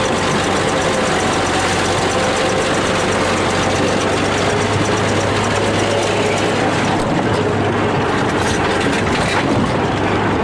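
Bulldozer's diesel engine running steadily and loudly, with a constant metallic clatter of its steel tracks as it drives over the cars.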